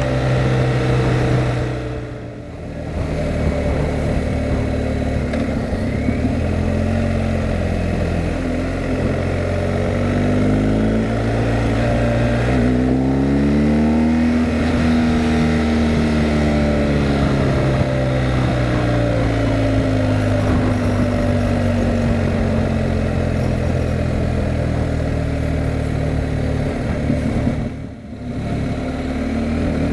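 Motorcycle engine heard on board while riding, over a steady rush of wind. The engine note falls and then climbs again around the middle, and the sound drops briefly twice, about two seconds in and near the end.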